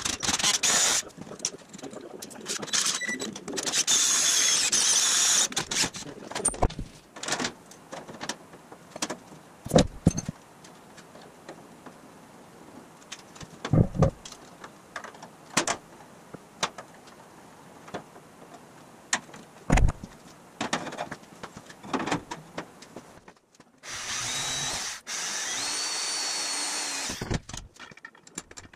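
Cordless drill with a twist bit boring holes through a 1/8-inch aluminum dashboard panel, running loudly for about the first six seconds. After that come scattered knocks and clunks of hand work, and near the end another power tool runs steadily for about three seconds.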